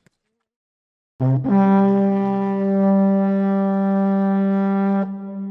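Silence for about a second, then background music: one long held brass note, with a change to new notes near the end.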